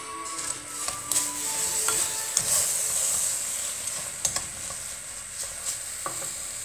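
Wooden spoon stirring damp granulated sugar in a stainless steel pot. It makes a gritty scraping with sharp clicks where the spoon knocks the pot, busiest in the first few seconds and easing off after that.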